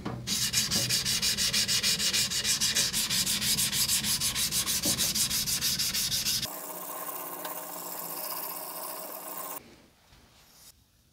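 Carbon-steel yanagiba (sashimi knife) blade being hand-sharpened on a wet whetstone: quick, even back-and-forth scraping strokes. About six and a half seconds in the sound changes abruptly to a quieter, smoother rubbing, which stops about three seconds later.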